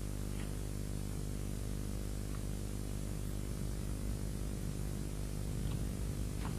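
Steady hiss and low electrical hum of the recording's background noise, with a few faint clicks and no gunfire or action sound.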